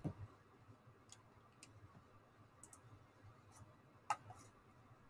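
Faint, scattered clicks of a computer mouse, about half a dozen, the loudest about four seconds in, over quiet room tone.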